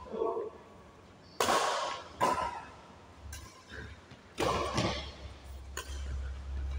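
Badminton rackets striking a shuttlecock in a doubles rally: four sharp smacks at uneven gaps, echoing in the hall.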